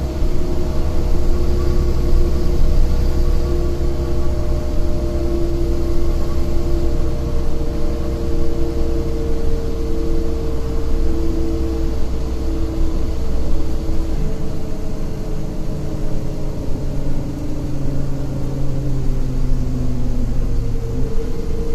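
City bus engine running and tyre-and-road rumble heard inside the passenger cabin while the bus drives along. The engine note shifts about two-thirds of the way through, and a few tones slide downward near the end.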